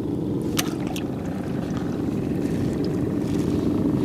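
A boat engine running steadily: an even low rumble, with a couple of faint clicks about a second in.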